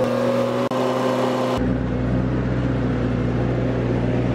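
Skid steer loader's engine running steadily at a constant pitch. About one and a half seconds in, the sound turns deeper.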